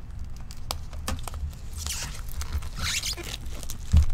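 Gloved hands tearing the plastic shrink wrap off a sealed box of trading cards: two quick scratchy rips about two and three seconds in, with small handling clicks, then a low thump near the end as the box is moved.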